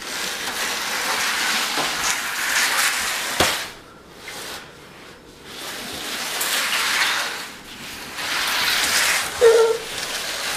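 Corrugated cardboard scratcher pad sliding across a ceramic tile floor under a seated child: a scraping hiss that comes in spells and drops away for about two seconds in the middle. A brief squeak comes near the end.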